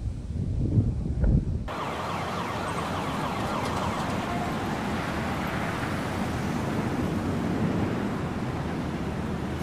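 Wind buffeting the microphone in low gusts. About two seconds in it cuts abruptly to a steady, even rushing noise.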